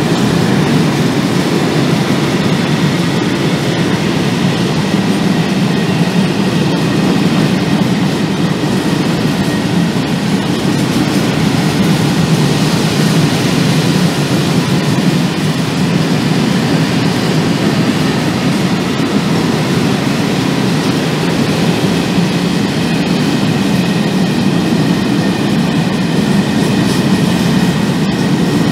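Long freight train of four-axle Eanos open wagons rolling steadily past, a continuous low rumble of steel wheels on the rails.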